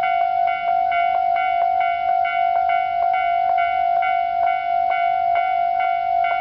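Japanese railway level-crossing warning bell, the standard electronic type, ringing steadily at about three strikes a second with a bright tone and overtones. It is the sign that the crossing is closed for an approaching train.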